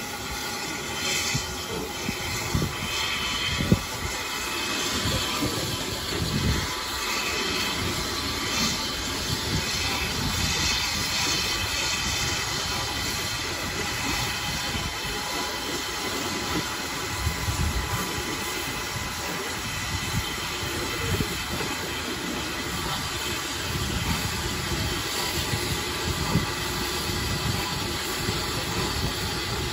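Steam locomotives moving slowly at low speed: a steady hiss of steam with wheel and rail noise and small knocks, and one sharp knock about four seconds in.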